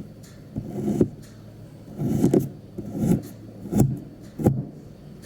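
Kinetic sand being cut and crushed: about five soft crunching scrapes roughly a second apart, several ending in a sharp click.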